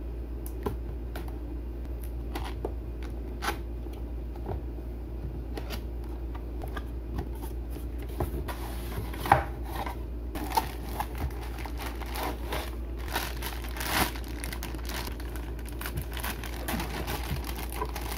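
Unpacking noises: a knife slitting packing tape on a cardboard box, cardboard flaps being handled and opened, then crinkling plastic as the bag around the figure is cut with scissors near the end. Scattered clicks and rustles, sharpest about nine seconds in, over a steady low hum.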